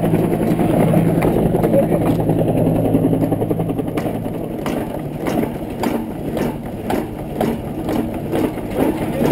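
An engine running steadily at a low pitch. About four seconds in it drops in level, and irregular knocks and clanks join it.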